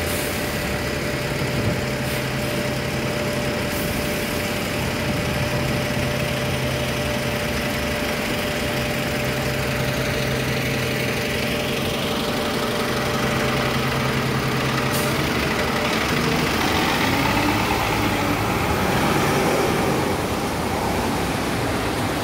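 Road traffic dominated by a double-decker bus engine idling with a steady low hum, then broader traffic noise swelling louder as vehicles pass in the later part.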